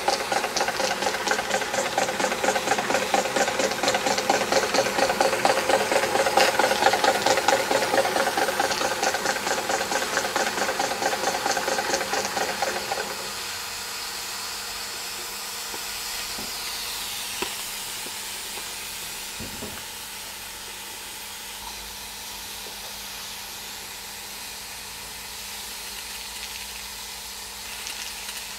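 Wilesco D22 model steam engine running with a fast, even chuff of exhaust steam. About halfway through the chuffing stops suddenly, leaving a soft steady steam hiss.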